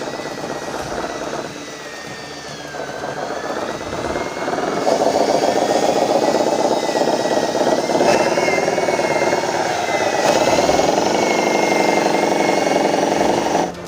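Radio-controlled dump truck's electric drive motor and gearbox whining under load as it drives, growing louder about five seconds in and cutting off abruptly near the end.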